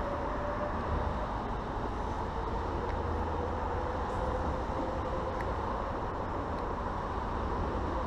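Steady, unbroken hum of distant road traffic, with a faint steady droning tone in it.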